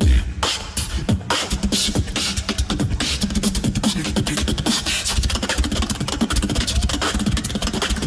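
Live beatboxing into a handheld microphone: a fast, dense run of sharp percussive mouth sounds over a steady low bass tone, growing busier about three seconds in.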